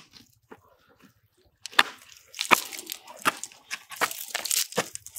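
Catch being picked out of a nylon cast net and tossed into a polystyrene box: a string of sharp clicks and knocks with rustling of the net, sparse at first and busier from about two seconds in.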